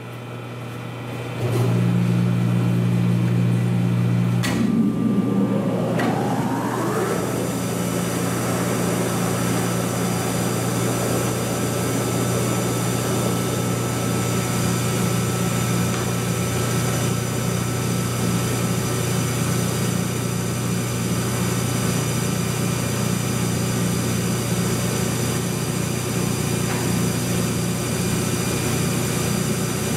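Big Monarch Series 90 engine lathe's electric drive starting up. A loud mains hum comes on about a second and a half in, then a whine rises in pitch for a couple of seconds as the drive spins up, and it settles into a steady running hum with a high whine over it.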